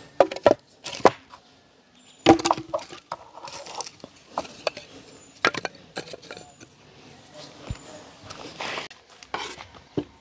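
Firewood sticks being broken and handled: a string of sharp, uneven cracks and knocks, the loudest in the first few seconds.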